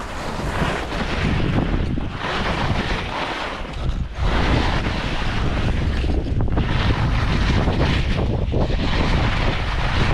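Wind rushing over a skier's camera microphone during a fast descent, mixed with the hiss of skis cutting through loose snow. The rush dips briefly about every two seconds, in time with the turns.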